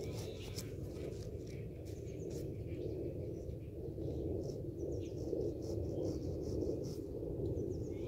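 Steady low rumble of outdoor background noise, with scattered short high chirps and clicks throughout.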